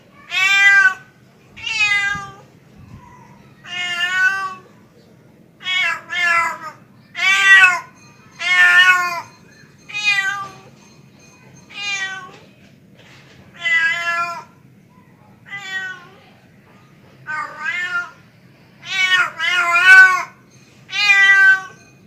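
Tomcat meowing over and over to call a female, the mating call of a male cat: long calls that rise and fall in pitch, about one every second or two, some coming in quick pairs.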